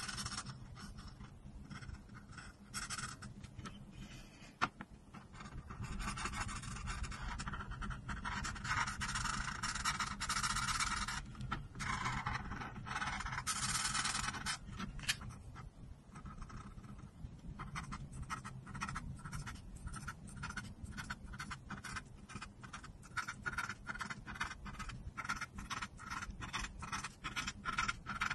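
Felt-tip marker nib scratching across paper while a coloring page is filled in. The first half has longer continuous strokes; the second half has a rapid run of short dabbing strokes, several a second.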